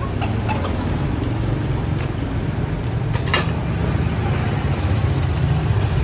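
Street traffic: a steady low rumble of passing vehicles, with one brief clack about three seconds in.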